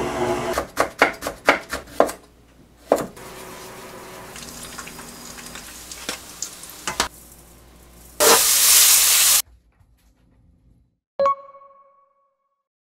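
Kitchen cooking sounds: a quick run of utensil clicks and knocks, then a steady sizzle of frying with scattered clicks. About eight seconds in a loud hiss lasts about a second. A single ringing ding follows and dies away over about a second.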